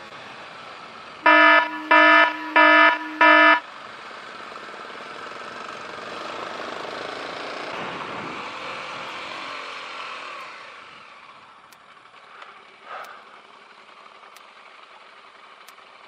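A motorcycle horn beeps four times in quick succession, the loudest thing here. Around it is the steady wind and engine noise of riding, which swells and then drops away about ten seconds in as the bike slows, leaving a quieter engine hum.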